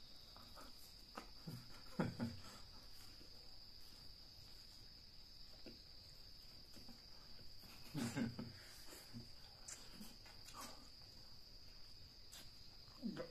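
Quiet eating with the hands from a shared platter of rice and chicken feet: soft chewing and mouth sounds, with brief louder murmurs about two seconds and eight seconds in. Under it all runs a steady high-pitched drone.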